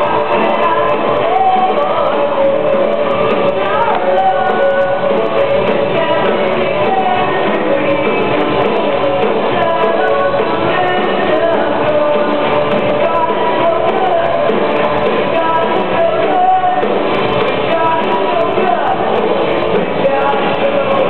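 Live rock band playing loud with a lead singer, drums, electric guitars and keyboard, heard from among the audience in a large hall.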